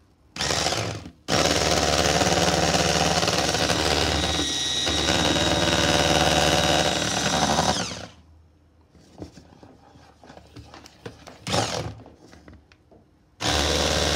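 Electric hand mixer with twin beaters running in a bowl of brownie batter, mixing the flour and cocoa in: a short burst, then a steady run of about seven seconds, a stop with one brief burst, and a restart near the end.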